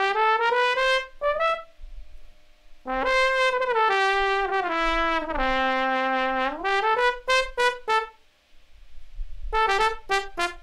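Sampled tenor trombone from The Trombone v3 virtual instrument, played live from a keyboard. It plays a melodic phrase of held notes that slide smoothly between pitches, mixed with short quick notes, with two brief pauses.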